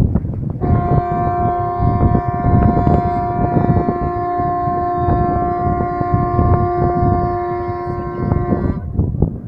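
A ship's horn from one of the fishing boats sounds one long, steady blast of about eight seconds, cutting off abruptly near the end. Wind buffets the microphone underneath.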